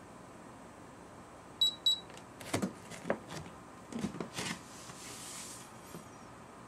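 Tanita InnerScan 50 body-composition scale giving two short high beeps, the signal that the weighing is done, followed by a few soft knocks and rustles.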